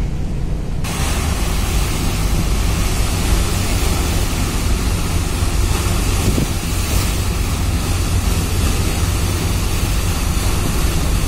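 Wind buffeting the microphone, which rises sharply about a second in, over the steady low drone of ship engines and the rush of water churning between the hulls.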